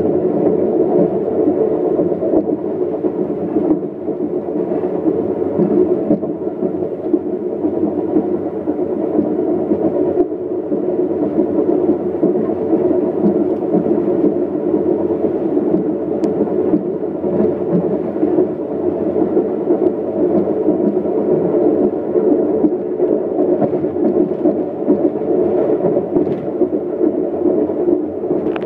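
Steady rumble and hiss of an Amtrak passenger train running on the rails, heard from inside the coach.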